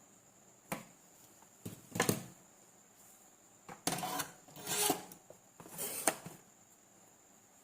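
Hand tools and small metal parts being handled: short clicks and scraping rubs in five separate bursts, the loudest about two and five seconds in.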